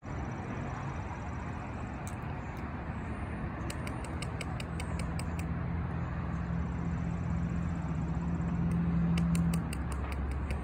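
Cat crunching dry kibble, heard as two runs of faint quick clicks, over a steady low motor-like hum and rumble that grows a little and cuts off near the end.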